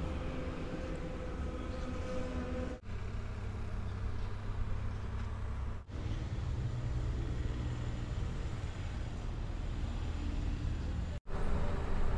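Tractor diesel engine running steadily with a low hum. The sound breaks off briefly three times, at about 3, 6 and 11 seconds, where the clips are cut together.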